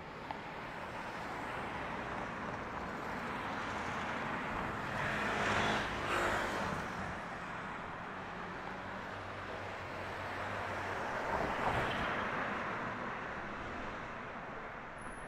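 City street ambience with steady traffic noise; two vehicles pass, swelling louder about six seconds in and again about twelve seconds in.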